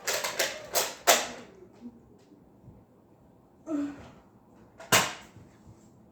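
Sharp plastic clicks and knocks from a Nerf blaster being primed and fired: a quick run of clicks in the first second, then a single sharp click about five seconds in.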